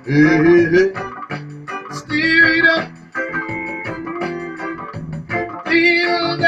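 A man singing with solid-body electric guitar and organ-like keyboard accompaniment. Sung phrases come at the start, again about two seconds in, and near the end, over sustained chords.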